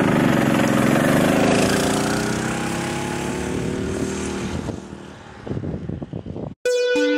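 Mini bike's 212cc Predator single-cylinder engine running at speed, loud at first, then fading as the bike rides away down the road. Music starts abruptly near the end.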